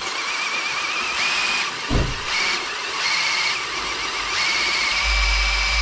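Cordless drill boring into the cast-iron engine block of a Toyota 5VZ-FE V6, the bit squealing in the hole. The squeal wavers in pitch, then holds steady for the last second or so. There is a low thump about two seconds in.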